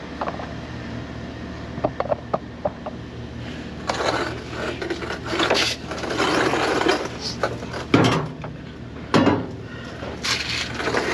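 An aftermarket exhaust pipe section being handled and slid into place under a car: a few light clicks, then scraping and metal rattling with two louder knocks in the second half, over a steady low hum.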